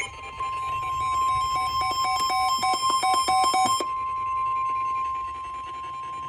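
Weather radio warning alarm: a steady high single tone near 1 kHz, typical of the NOAA Weather Radio 1050 Hz alert tone that heralds a new warning. For the first four seconds or so a choppy electronic beeping on other pitches plays over it and then stops, leaving the plain tone.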